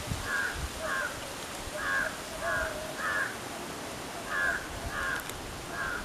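Large-billed crow cawing: eight short, harsh caws in three quick runs.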